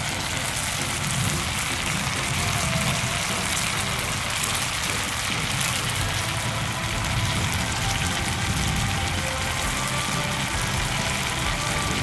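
Pot of beans boiling hard over a crackling wood campfire: a steady, dense bubbling hiss with a low rumble under it.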